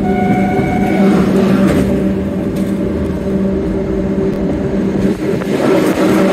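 Narrow-gauge electric train running, heard through an open carriage window: a steady rumble of wheels on rail with a low electric motor hum. A brief high-pitched squeal sounds in the first second, and the noise grows fuller near the end as the train goes into a tunnel.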